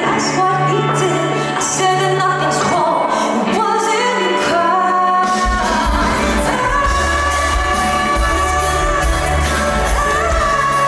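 Live pop song played through a concert sound system, a woman singing over the band's backing; heavy bass and drums come in about five seconds in.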